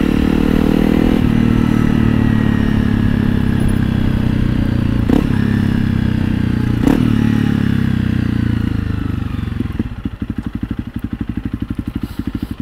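Honda CRF300L's single-cylinder four-stroke engine running through a Yoshimura RS-4 full exhaust, heard from on the bike. The engine note falls gradually, with two short clicks about five and seven seconds in, then drops near the end to a quieter, evenly pulsing idle.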